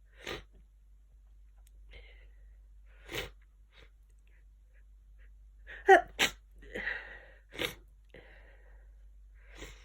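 A person sneezing repeatedly from hay fever: about six short, sharp sneezes a few seconds apart, bunched together around six to eight seconds in, with a breathy intake between them and the loudest sneeze just before the middle of that run.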